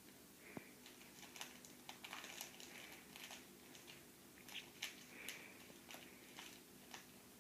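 Faint, scattered clicks and smacks of a toddler chewing pieces of cantaloupe and grapes, over a faint steady hum.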